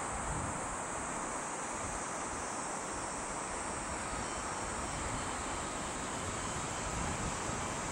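Steady outdoor background hiss with no single event standing out.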